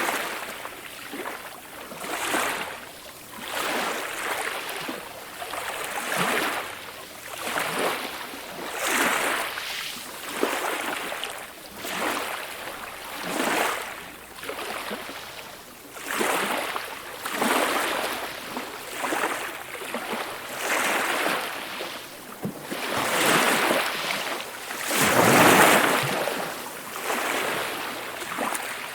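Small, calm ocean waves washing in again and again, a swell of water hiss every second or two, with one larger wave near the end.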